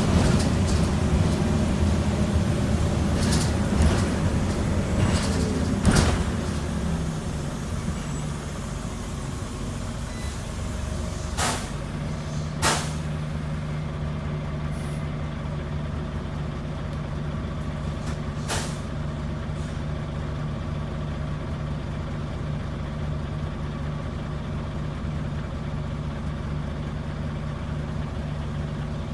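Scania N94UB bus's five-cylinder diesel engine heard from the rear seats, running louder as the bus slows during the first several seconds, then dropping to a steady idle while stopped. Short sharp hisses of air from the air brakes come twice close together just before the middle and once more a few seconds later.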